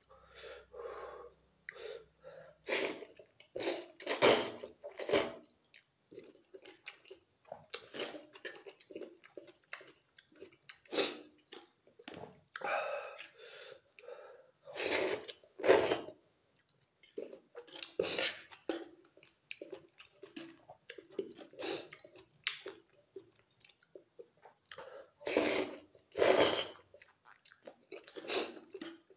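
A person eating soupy instant noodles off a fork: repeated wet slurps and chewing, with a few longer, louder slurps.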